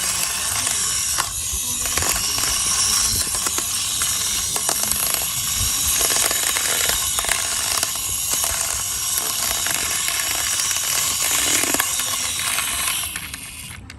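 A toy plane's small wheels rolling over a rough wall as it is pushed along by hand: a continuous gritty rattle with many small clicks, which stops about a second before the end.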